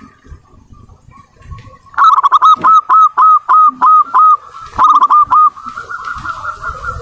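Zebra dove (perkutut) cooing. About two seconds in comes a quick series of loud, short, hooked coo notes at a steady pitch, then a second shorter run, running on into a softer continuous trill.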